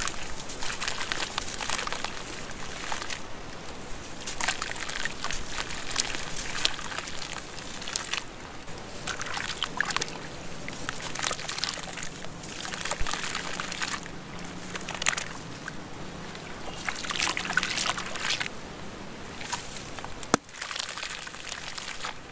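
Water-soaked sandy clay block squeezed and crumbled by hand over a tub of water, crunching and crackling as grit and pieces dribble and splash into the water. The sound comes in repeated bursts a few seconds apart, with one sharp click near the end.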